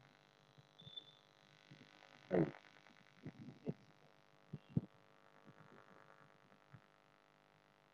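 Faint steady electrical hum over a quiet call line, broken by a brief murmur of a voice about two and a half seconds in and a few soft knocks and taps a little after.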